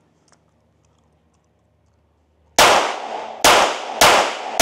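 SIG P322 .22 LR pistol with a 4-inch barrel, fired unsuppressed with Winchester Wildcat ammunition. After a couple of seconds of quiet come three sharp shots in quick succession, about half a second apart, each with a ringing tail.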